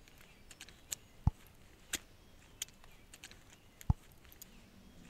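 Metal clicks and clinks of a key working a padlock on a steel chain: a few sharp separate ticks, two of them louder with a dull low thud under them, about a second in and again near four seconds.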